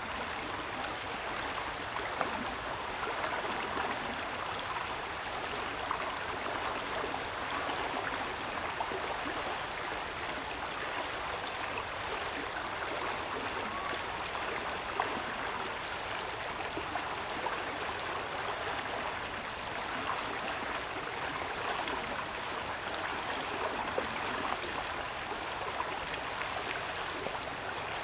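Steady rush of running water, like a stream, with a few faint short ticks.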